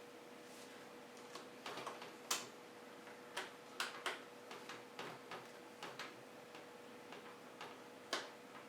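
Light, irregular clicks and taps of a small screwdriver on screws and plastic as two screws are driven back into a laptop's screen bezel, the sharpest click about two seconds in and another near the end.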